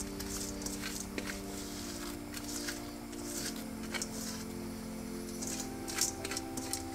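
Soft background music of held chords that change about halfway through, over light scraping and clicking as frozen crickets are tipped from a metal colander into a pot of boiling water.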